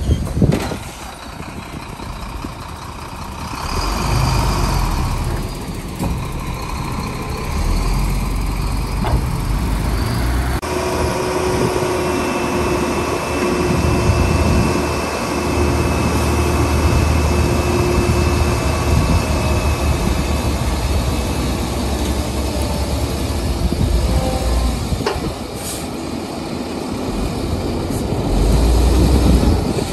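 Heavy diesel dump truck engines running while their raised beds tip loads of soil out. The sound changes abruptly about ten seconds in. After that a steady high whine sits over the engine for about ten seconds.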